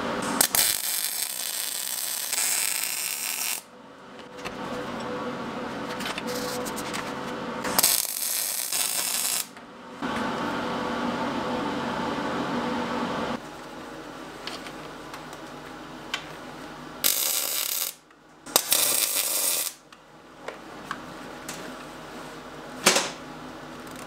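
Steel fabrication at a vise: four bursts of welding, from about one to three seconds long, starting and stopping abruptly, with metal parts clinking between them and a sharp click near the end.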